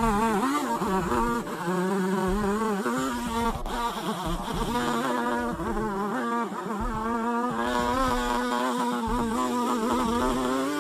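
Chainsaw engine running at high revs, its pitch wavering up and down as it loads and unloads in the cut.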